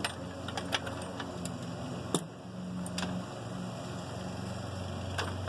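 Scattered light clicks and knocks of metal parts being handled and seated on a V8 engine's intake and fuel rail, over a steady low hum. The sharpest knock comes about two seconds in.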